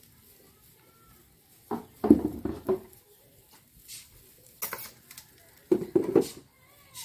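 Dry grass stalks of a hand-made broom rustling and clicking in several short bursts as the bundle is handled and bound at its gathered end.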